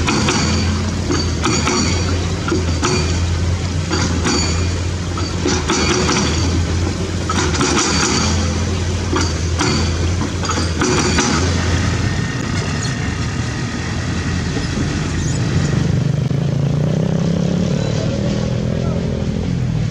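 Hydraulic excavator's diesel engine running with a steady low hum and repeated metallic clinks. Later the engine note rises and bends for a few seconds as the machine works its boom and bucket under load.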